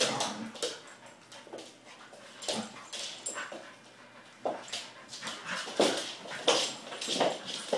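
A young Great Swiss Mountain Dog and a blue merle dog play-fighting, with irregular bursts of growls, yelps and whines. Their claws scrabble on a laminate floor, and the loudest bursts come about six seconds in.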